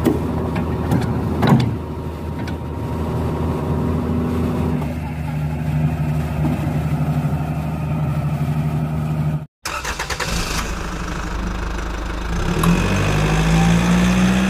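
Heavy-equipment diesel engines running steadily, with a few sharp metal clanks in the first couple of seconds. After a brief cut about nine and a half seconds in, a diesel engine runs again and revs up near the end.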